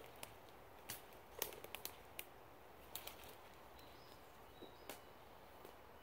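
Quiet woodland ambience: a faint steady hiss with scattered sharp crackles and ticks, bunched in the first half, and a couple of faint, short, high bird chirps in the second half.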